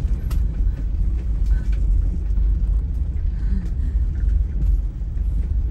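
Steady low rumble of a light-truck motorhome's engine and tyres, heard from inside the cab while it drives along a narrow lane.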